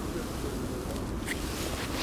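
Wind buffeting the microphone, a steady low rumble, with one short click about a second in.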